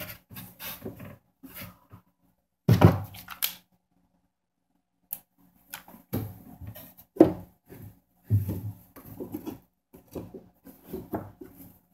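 Irregular knocks, taps and rustles of hands handling a plastic foosball goal piece against a fibreboard panel and picking up a cordless drill, with a louder knock about three seconds in and more around seven to nine seconds.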